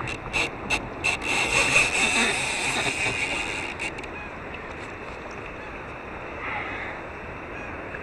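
A fishing reel's drag buzzing in short, irregular spurts as a hooked red drum pulls line, for about the first four seconds. After that it gives way to a quieter, steady wash of water and wind.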